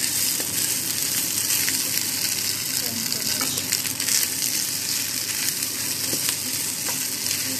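Fried rice and fresh spinach sizzling with a steady hiss in a hot non-stick pan as they are stirred with a spatula, with a few light taps and scrapes of the spatula against the pan.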